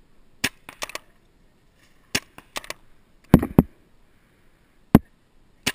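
Scattered sharp pops of paintball fire, about a dozen at uneven intervals, the loudest about three and a half and five seconds in.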